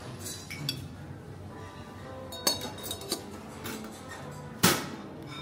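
Background music with a few sharp clinks of dishes and cutlery at a meal, the loudest near the end.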